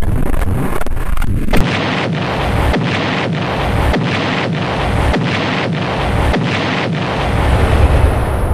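Sound effect of a huge explosion: a sudden blast about a second and a half in, then a long, loud, noisy rumble that pulses roughly every half second and swells again near the end.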